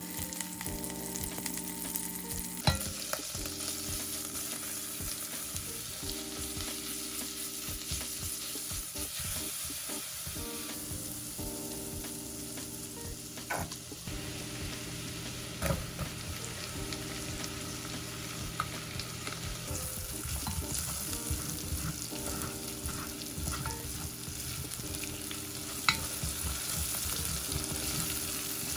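Food sizzling in a frying pan as it is stirred, with a few sharp clicks of a utensil against the pan.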